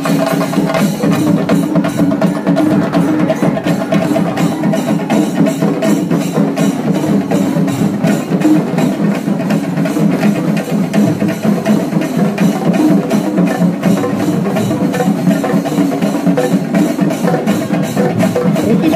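Fast, dense drumming of sharp stick strokes over steady sustained tones.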